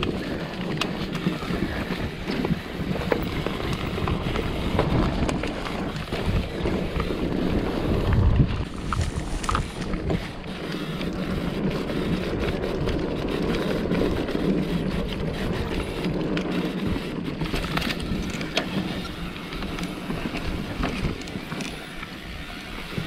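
Mountain bike riding down a rough dirt trail: steady wind noise on the microphone with many small knocks and rattles from the bike over bumps, and a heavier thump about eight seconds in.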